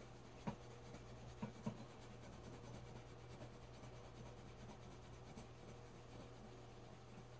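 Faint scrubbing of a small scrub pad and scrub polish against a silver-plated metal goblet, working at the patina on the plating. There are three light knocks in the first two seconds.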